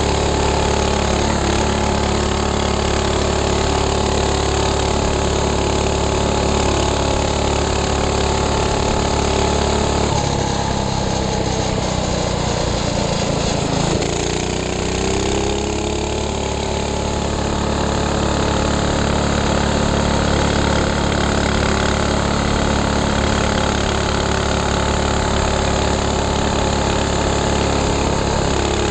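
Minibike engine running at a steady cruising speed, easing off about ten seconds in, then picking up again with a rising pitch a few seconds later and holding steady.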